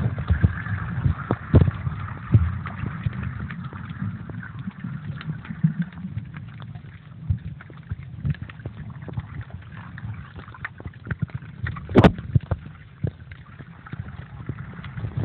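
Muffled knocking and rubbing of a waterproof pouch with a phone sealed inside, jostled in the sea while snorkeling, with water sloshing against it. The knocks are irregular, with one sharp knock about twelve seconds in.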